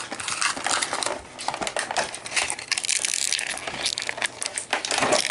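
Plastic action-figure packaging crinkling and clicking as it is handled and opened, a dense irregular crackle of small sharp clicks that eases off briefly about a second in.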